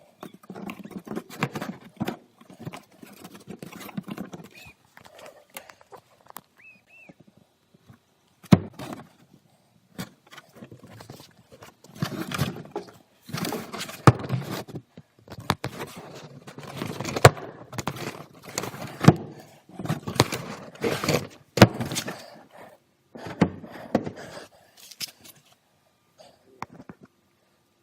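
Irregular knocks, clatter and rustling from hands working in a car's engine bay, played back at double speed, with a few sharp thumps; two short high squeaks come about five and seven seconds in.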